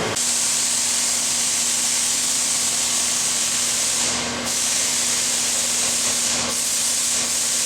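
Lucas 30DCP-128 CNC horizontal boring mill running as its table traverses: a steady hiss over a low steady hum, dipping briefly twice.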